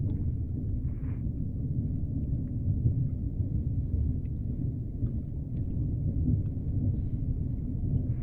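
Underwater ambience: a steady low rumble with scattered faint clicks and ticks.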